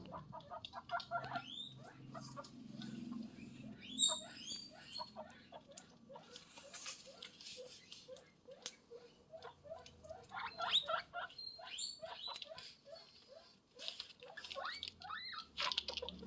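Guinea pig squeaking in quick runs of short calls that rise in pitch, some sweeping up high, mixed with small clicks.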